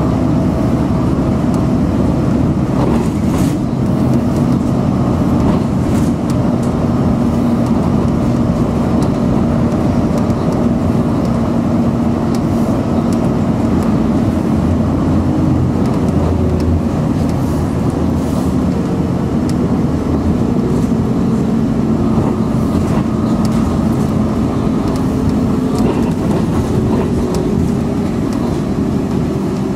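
Bus engine and road noise heard from inside the moving bus: a steady drone with a low engine hum running under it.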